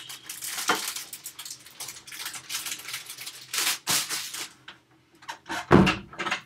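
Rustling and clattering from objects being handled, then a single heavy thump a little before six seconds in, as something is dropped off and set down in the room.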